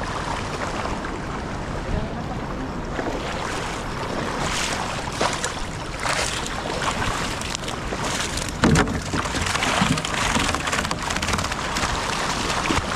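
Splashing in shallow water as fish thrash and a person wades and sweeps a landing net, over a steady noise of moving water. A few sharper splashes stand out, the loudest about two-thirds of the way through.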